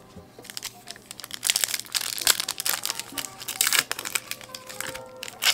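Foil trading card pack being torn open and crinkled by hand: a dense crackle of foil wrapper from about a second and a half in, with a sharp, louder rip near the end.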